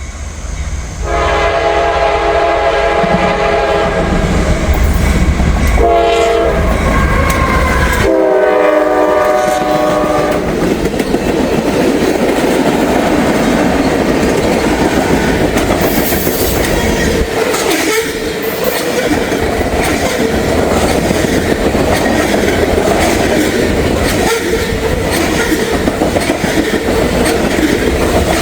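Norfolk Southern freight train passing at speed: the locomotive's air horn sounds several blasts, the last one dropping in pitch as the engine goes by. Then comes the steady rumble and clickety-clack of the cars rolling past.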